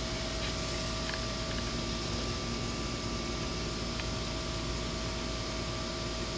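A steady mechanical whir with a faint, even hum tone running under it, like a fan or air-conditioning unit running, with a few faint ticks.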